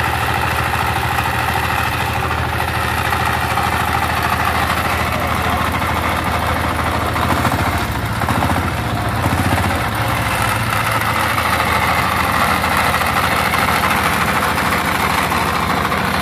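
Diesel engine of a generator set running steadily at constant speed just after starting, exhaust fitted with a silencer; its sound is fairly smooth and not noisy.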